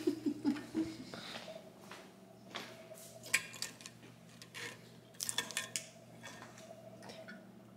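A few light clicks and clinks of cutlery against a plate as food is picked from the dish.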